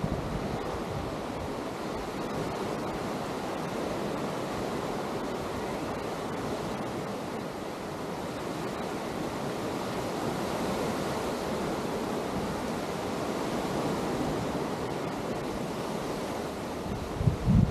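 Atlantic surf washing onto a sandy beach: a steady wash of wave noise. A short low thump near the end.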